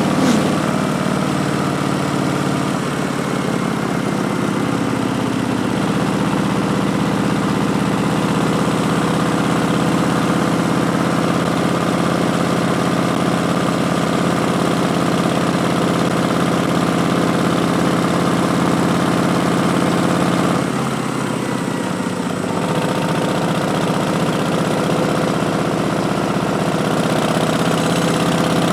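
Harley-Davidson Street Bob's Milwaukee-Eight 107 V-twin running through V&H Twin Slash slip-on mufflers, mostly at a steady pitch. The engine speed shifts about four seconds in, and it dips and changes again around twenty-one seconds.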